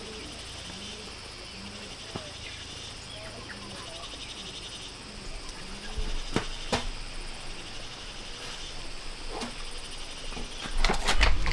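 Insects trilling steadily. A few sharp clicks come about six seconds in, and a louder run of knocks and rustling near the end.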